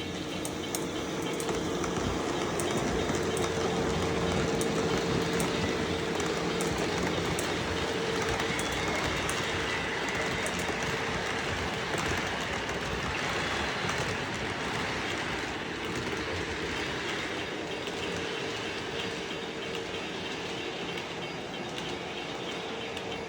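Model train running on its track: a steady motor and gear hum under wheel rumble, with rapid clicks over the rail joints in the first several seconds. It comes closest about four to five seconds in and then slowly fades away.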